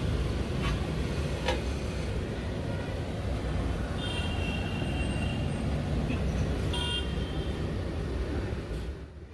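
Road traffic rumbling steadily, with a vehicle horn honking for about a second and a half about four seconds in and a short toot near the end, plus a few light clicks.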